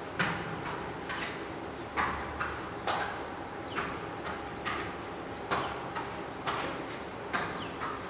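Bare feet slapping and landing on foam floor mats in a rough rhythm of about one hit a second during martial-arts footwork and kicks. Crickets chirp steadily behind.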